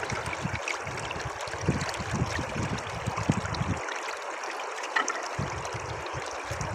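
Shallow river flowing over stones: a steady wash of running water, with irregular low rumbles underneath that drop away for a moment about four seconds in.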